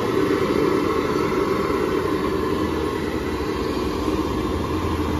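Chaulbara (rice-batter fritters) deep-frying in a kadai of hot oil: a steady sizzle, mixed with street traffic and an engine rumble that grows stronger about four seconds in.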